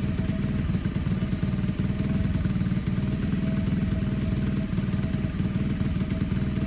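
Lifan 125 four-stroke single-cylinder engine in a Honda CT70 idling steadily.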